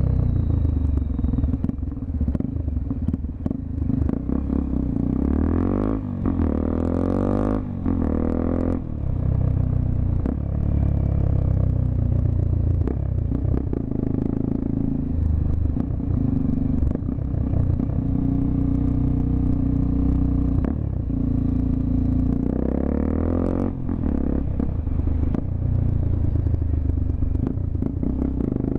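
Honda XRE 300's single-cylinder engine running through a Roncar 2-way aftermarket exhaust, with the revs rising and falling a few times as the bike is ridden.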